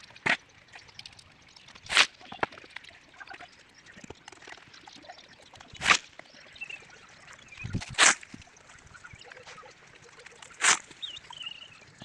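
Wet concrete mix tipped from a pan into wooden plank formwork for a concrete band, landing with a short wet slap five times, every two to three seconds.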